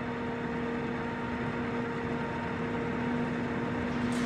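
Martin D-80 heavy-duty lathe running under power, its carriage travelling slowly backward in power feed. It makes a steady mechanical hum with a constant low tone.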